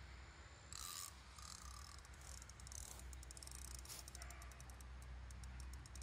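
Faint clicking and whirring of a fishing reel while a hooked carp is played on a bent rod: a few short hissy whirs, then rapid, irregular clicks from about two seconds in.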